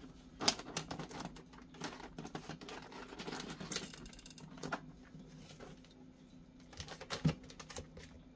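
Wrapping paper crinkling and rustling as its flaps are folded and pressed down inside a cardboard box, with scattered sharp clicks and taps, two of them louder, about half a second in and near the end.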